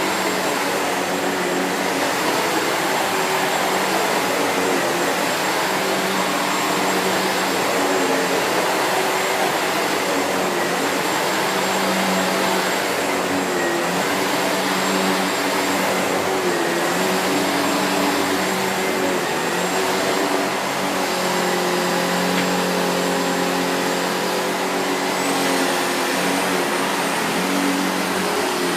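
SEBO Felix bagged upright vacuum cleaner running steadily, with a thin high whine over the rush of air. Its lower tones waver slightly, and the high whine rises a little near the end.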